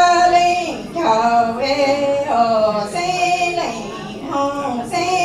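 A woman singing Hmong lug txaj, the traditional sung poetry, in one solo voice. The notes are held and slide from one pitch to the next, with short breaths between phrases.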